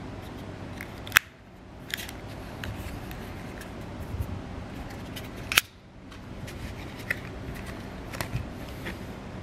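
Handling of a plastic SanDisk Extreme Go USB flash drive: two sharp clicks about four seconds apart, with lighter clicks and taps in between.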